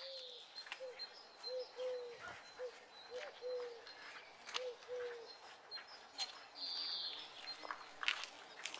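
A dove cooing in a string of short, soft coos through the first five seconds or so, with small birds chirping now and then throughout.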